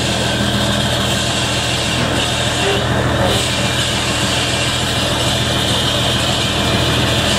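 Fishing boat's diesel engine idling steadily, a constant low drone with no change in speed.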